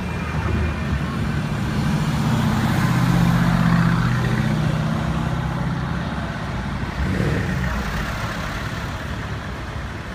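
Car engine running with a deep, steady exhaust note as cars creep past in slow traffic; it grows louder a few seconds in, then fades toward the end.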